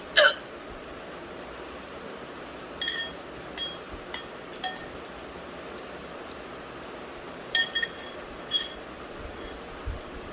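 A single sharp hiccup at the very start, then about eight light ringing clinks scattered over the following seconds.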